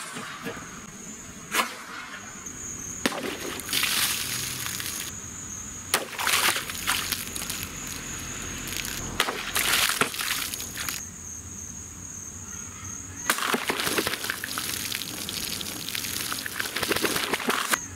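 A handmade broadsword chopping through water-filled targets: a watermelon, then a plastic jug. Sharp strikes come several times, each followed by splashing and trickling water. A steady high insect drone sits underneath.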